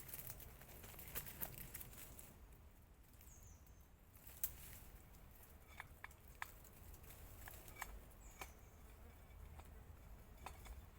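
Near silence with faint scattered clicks and crackles of hands working at twigs and debris round a tree, and a few short, high, falling bird chirps now and then.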